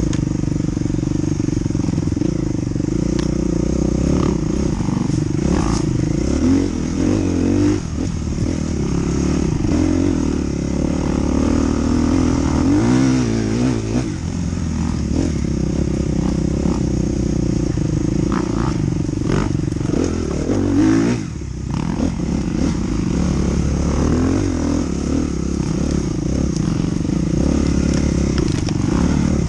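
Dirt bike engine running as it is ridden over rough ground, revs rising and falling with the throttle, with rattling from the bike. The engine note drops briefly about two-thirds of the way in, then picks up again.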